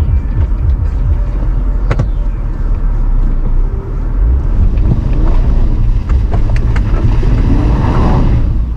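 Lifted Jeep Cherokee Trailhawk on mud tyres driving slowly over a rough, rocky dirt trail: a steady low rumble of engine and tyres, with a few sharp knocks and clicks from rocks and the body.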